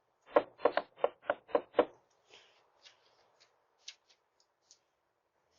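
A quick run of about seven knocks, roughly four a second, in the first two seconds, followed by a few faint clicks.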